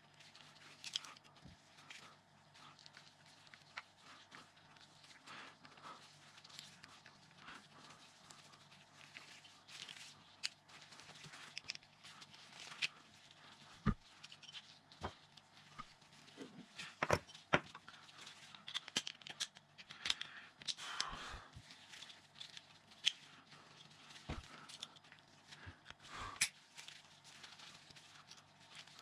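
Scattered small metal clicks and taps of a bicycle brake lever being taken apart with a screwdriver, its circlips, pin and spring handled, with rustling of gloves and paper towel. A few louder clicks fall in the second half.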